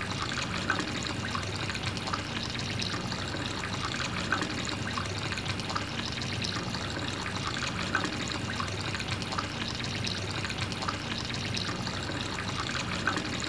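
A thin stream of water from a small hose trickling and splashing onto wet sand, steady throughout, with a low steady hum underneath.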